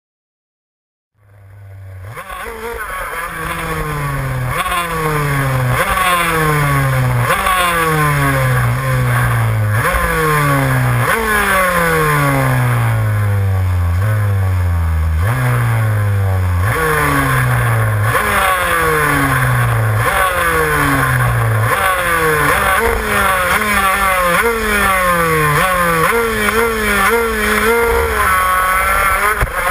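Several two-stroke shifter kart engines blipping the throttle over and over at low speed, each rev rising sharply and falling away again every second or two. The sound fades in about a second in.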